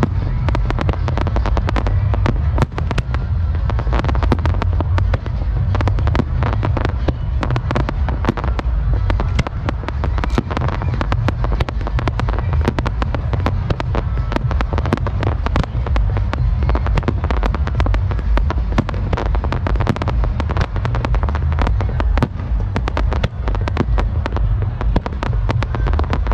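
Fireworks display: many bangs a second from aerial shells and low-level effects firing together, with no pause and a continuous low rumble underneath.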